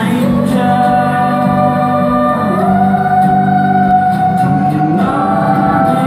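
Large youth choir singing long held chords, moving to a new chord a few times.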